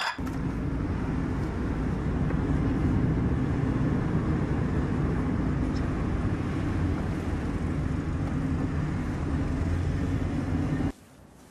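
Inside a moving car: steady engine and road hum. It cuts off suddenly near the end.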